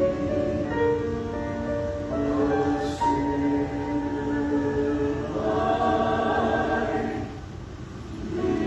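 Church choir singing a sustained, slow-moving anthem in several voices, heard through a cell-phone recording of the sanctuary. The singing eases off briefly about seven seconds in, then swells again near the end.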